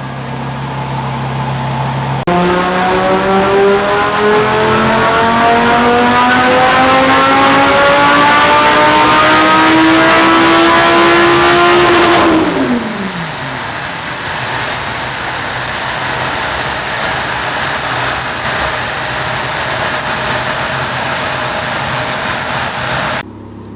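Audi R8's V10 engine with a titanium exhaust, idling, then making a full-throttle dyno pull. The revs climb smoothly in one long rise for about ten seconds before the throttle is lifted and the revs fall sharply. A loud, steady rushing noise carries on afterwards until it cuts off near the end.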